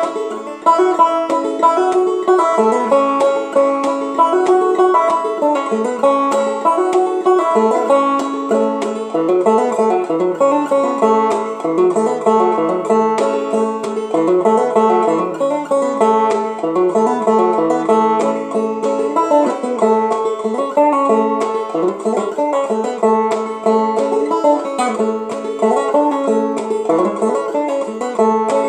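Solo banjo played clawhammer style: an unbroken run of quick, evenly paced plucked notes carrying an old-time tune.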